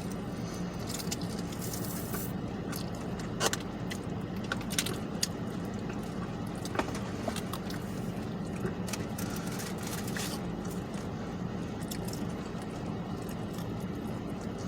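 Close-up eating sounds: crunching and chewing of crispy fried chicken, with scattered sharp crackles and rustles over a steady low hum.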